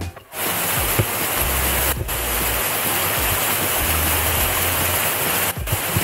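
Small forest stream rushing steadily over a little cascade between snowbanks, with brief dips in the rush about two seconds in and near the end.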